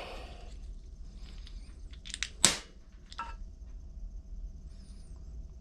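Handling noises as small carburetor parts are turned over and compared by hand: a few short clicks and a brief scraping rustle, the loudest about two and a half seconds in and another just after three seconds, over a faint steady hum.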